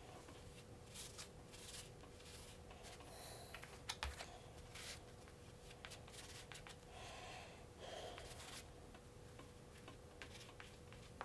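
Faint scraping of a wooden stick spreading gel contact cement over a cardboard-and-foam surface, in irregular strokes, with a couple of sharper clicks about four seconds in. A faint steady hum lies underneath.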